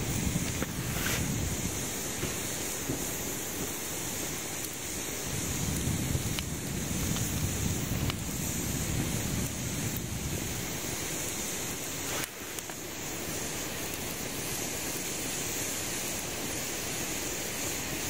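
Wood fire burning: a steady rushing roar of flames with a wavering low rumble and a few faint crackles.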